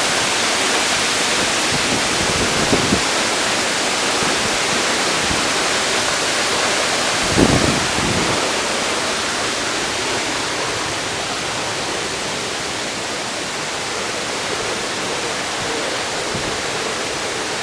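Steady rushing of a waterfall, with a brief low thump about seven and a half seconds in.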